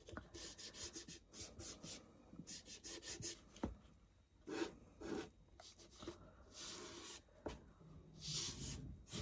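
Faint, irregular short strokes of Distress ink being rubbed onto the edges of a wooden cigar box and its paper image, with a couple of small taps.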